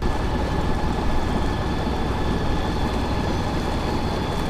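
A small sailboat's engine running steadily as the boat motors across the harbour, with water rushing in the wake astern. It has a dense low rumble and a faint steady whine above it.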